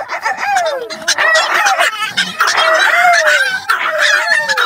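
Chihuahuas howling together, overlapping wavering howls that slide down in pitch, one after another.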